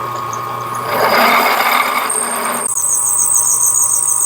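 Drill press running with a 1/4 inch drill bit cutting into aluminium: a steady motor hum, a rush of cutting noise about a second in, then a high, pulsing squeal from the bit from about two seconds in.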